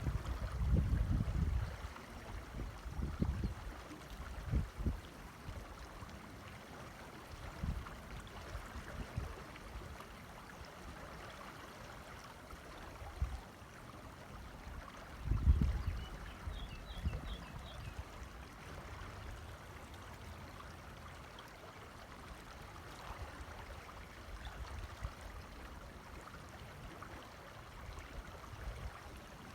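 Mountain creek rushing steadily with an even, continuous water noise. Irregular low gusts of wind rumble on the microphone, loudest near the start and about halfway through.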